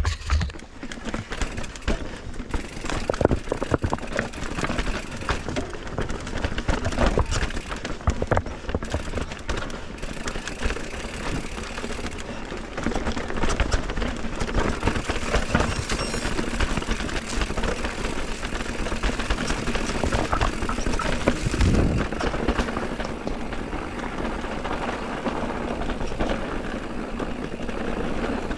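Mountain bike ridden over loose rocky ground: tyres on stones and the bike rattling, with many short knocks throughout.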